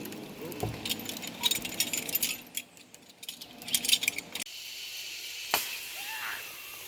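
Rapid metallic clinking and jangling of zipline harness hardware such as carabiners and trolley for about four seconds. After an abrupt change, a steady high hiss with one sharp click.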